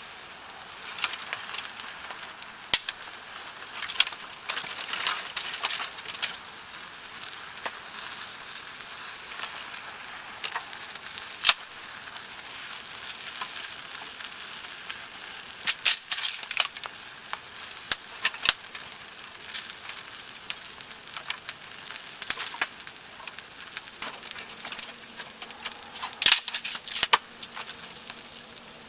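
Wood fire crackling, with a steady hiss under irregular sharp pops that come in quick clusters now and then.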